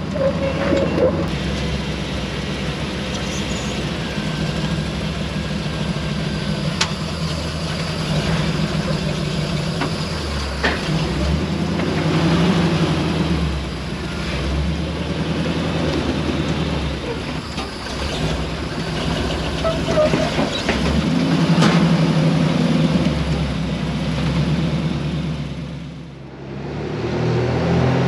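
Old Jeep's engine running as it is driven along and then crawls up onto a trailer, rising and falling with the throttle. Its loudness dips briefly near the end.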